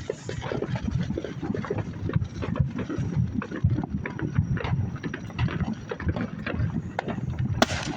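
Distant consumer fireworks popping and banging over and over from many directions, over a low rumble, with one sharper, louder crack near the end.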